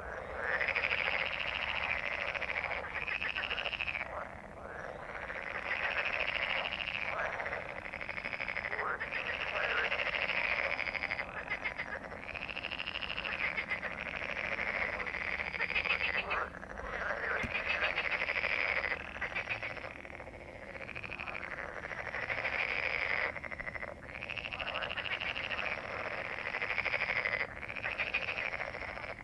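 A dense chorus of many frogs croaking at once, calls overlapping without a break, the chorus swelling and easing every few seconds: a breeding chorus.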